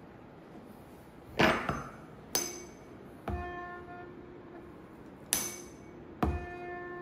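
A tuning fork is struck with sharp knocks. Twice its stem is set on the sonometer's wooden box, and it rings out with one steady tone and bright overtones that fade over a second or more. The fork is driving the stretched sonometer wire to find its resonant length at the raised tension.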